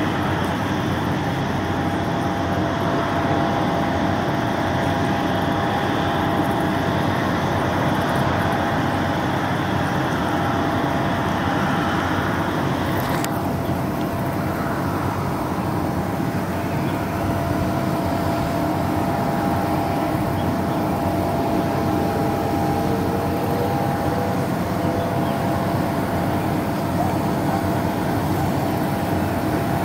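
Rolls-Royce Trent 7000 turbofans of an Airbus A330-900neo at taxi power, heard from afar as a steady rumble with a thin steady whine. The higher hiss drops off suddenly about thirteen seconds in.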